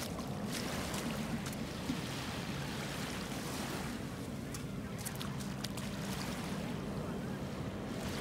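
Airliner on approach, heard from far off as a steady low rumble under a hiss of wind and water.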